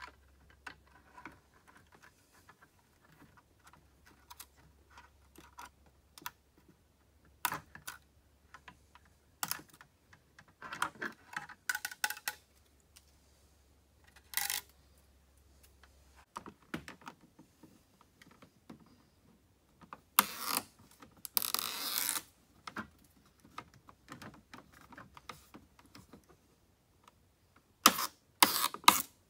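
Irregular clicks, taps and knocks of a carbon fiber diffuser being handled and pressed against a plastic bumper. A little past two-thirds of the way in come two longer noisy pulls, as the backing film is peeled off the double-sided tape, and a few loud knocks follow near the end.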